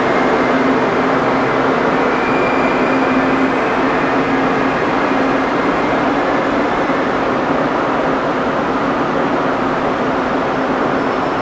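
ICE high-speed train running along the tracks: a steady running noise with a low hum underneath, easing off only slightly.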